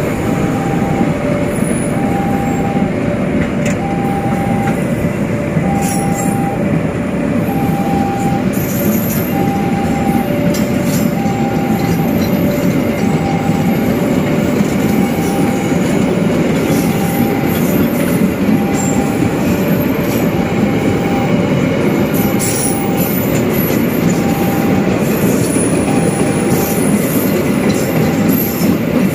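Clinker hopper wagons of a freight train rolling past close by: a steady, loud noise of wheels on the rails. A level-crossing warning alarm sounds throughout as two alternating tones, each repeating about once a second.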